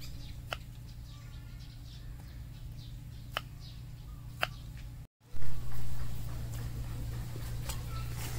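A kitchen knife cutting cauliflower florets on a wooden cutting board: a few sharp clicks of the blade against the board, over a steady low hum. About five seconds in the sound drops out briefly and a loud thump follows.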